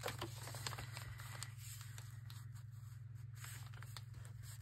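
Faint rustling and light scattered clicks of a handmade paper journal and its pages and pockets being handled, over a steady low hum.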